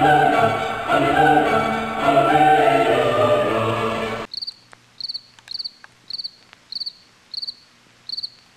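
Choral, opera-style music that cuts off suddenly about four seconds in, leaving a cricket chirping steadily, about two to three short high chirps a second.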